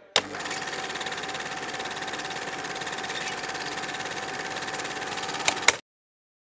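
Film projector running: a rapid, steady mechanical clatter with a steady hum. It starts with a sharp click, and two clicks near the end come just before it cuts off suddenly.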